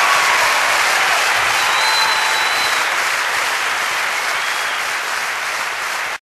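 Audience applause at the end of a live song, slowly fading, then cut off suddenly near the end.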